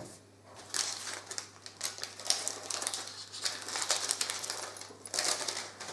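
Plastic packaging crinkling and rustling as it is handled, in quick irregular small crackles.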